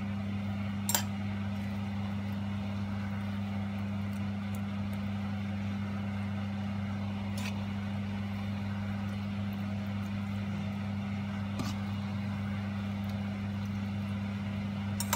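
A steady low hum runs throughout, with a few faint clicks of a metal fork against the pan and bowl as pasta is served out of the pan.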